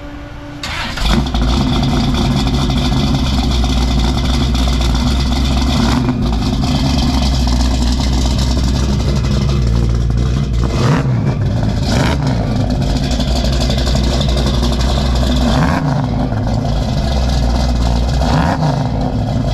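Classic car's engine running through a custom dual exhaust with a deep, bassy note. It comes in about a second in, then holds steady with a few rises and falls in pitch as the throttle changes.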